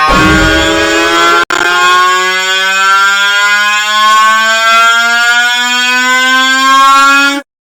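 Digitally stretched and distorted 'bruh' meme sound effect: one long, loud drawn-out tone slowly rising in pitch, with a brief dropout about a second and a half in, cutting off abruptly near the end.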